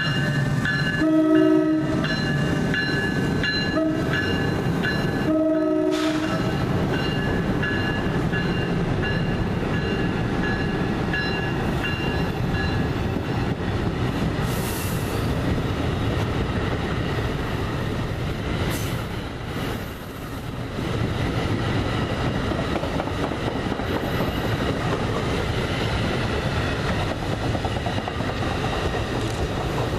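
NJ Transit electric locomotive's horn sounding for the grade crossing, long, short, long, as it leads a train of multilevel coaches past at speed. After the last blast, about six seconds in, comes the steady rumble and clatter of the coaches rolling by on the rails.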